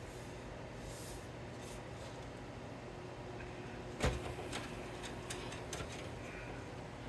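Handling noises while assembling a PC: one sharp knock about four seconds in, then a few light clicks and taps, over a steady low hum.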